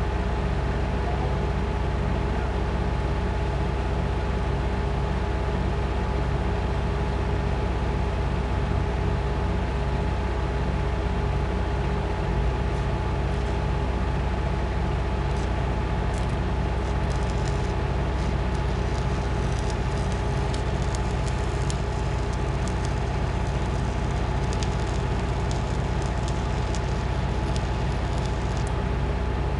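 Workshop machinery running with a steady hum. Irregular crackling joins in about halfway through and stops shortly before the end.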